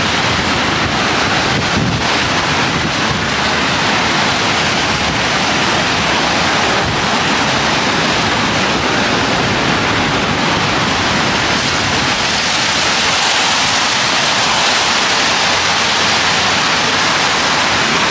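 Loud, steady rush of wind and heavy rain on the microphone.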